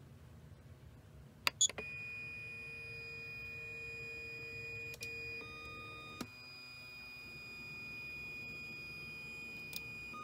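A click or two from the 3D printer's control knob about a second and a half in, then the Fabrikator Mini's stepper motors whining with steady high tones that shift pitch several times as the axes start to move.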